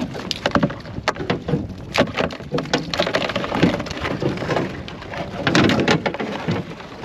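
Mud crab being handled into a bin: a dense run of sharp clicks, knocks and scrapes as its legs and claws scrabble against the bin, with a few heavier thumps.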